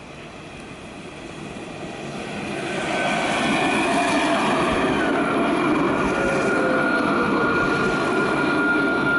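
Alstom Citadis tram approaching and passing close by, its running noise growing louder over the first three seconds. It then settles into a steady rolling rumble with a high steady whine on top.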